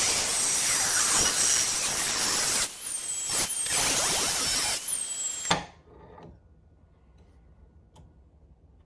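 Power drill boring a hole through a steel knife-blank, running hard with two short let-ups and a falling whine as the motor slows; it stops about five and a half seconds in with a click.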